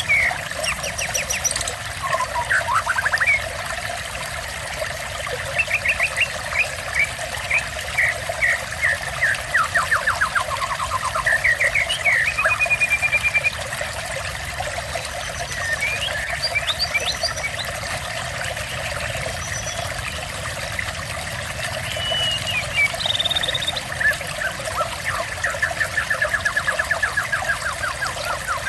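Water trickling steadily, with small birds singing over it in series of quick repeated chirps, some falling in pitch.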